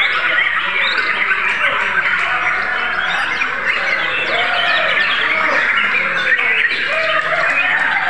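Many caged white-rumped shamas (murai batu) singing at once in a competition, a dense, continuous mix of rapid whistles, chirps and trills overlapping without a break.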